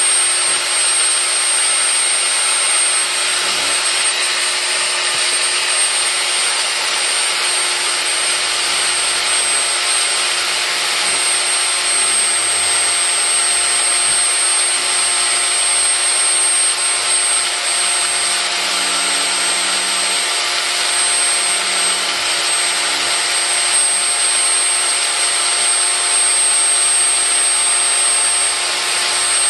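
Metal-bodied electric drill running steadily at speed, its thin bit grinding out the old plaster of Paris that held a cast iron level's glass vial. A steady motor whine with a steady grinding noise.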